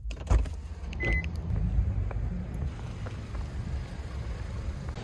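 Parking-lot noise: a steady low rumble, with a loud thump just after the start and a short high beep about a second in.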